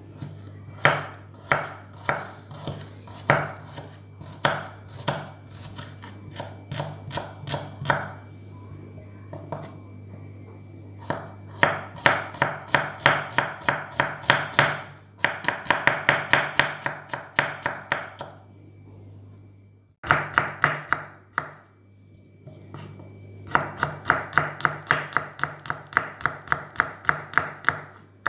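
Kitchen knife slicing shallots and garlic on a wooden cutting board: runs of quick cuts, about four a second, broken by short pauses, with slower, uneven strokes at the start.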